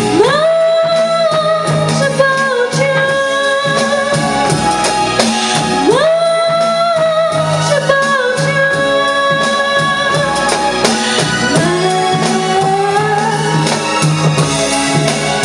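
A woman singing a pop song into a microphone over instrumental accompaniment, with long held notes that swoop up into pitch, once at the start and again about six seconds in.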